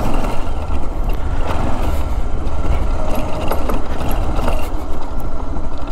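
Motorcycle ridden slowly over rough, dry grassy ground: steady engine and riding noise under a heavy low rumble, with a few light knocks.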